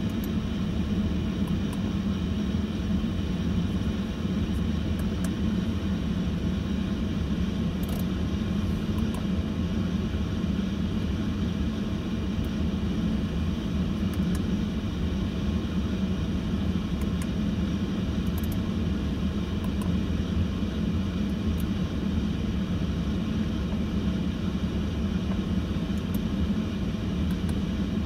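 Steady low rumble of the Audi A8's W12 engine idling, heard from inside the cabin, unchanging throughout.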